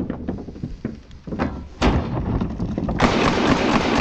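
Knocks and a thud, then from about three seconds in a sustained burst of fully automatic fire from an H&K UMP45 .45 ACP submachine gun.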